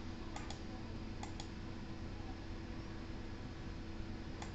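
Faint computer mouse clicks, a few pairs of press-and-release clicks, over a steady low electrical hum and hiss.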